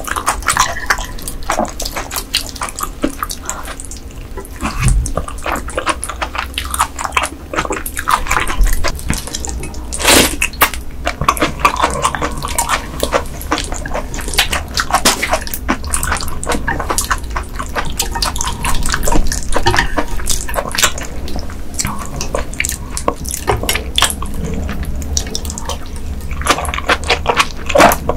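Close-miked wet chewing and mouth sounds from eating raw ice goby sashimi dressed in sauce: a dense run of short wet clicks, with one louder moment about ten seconds in.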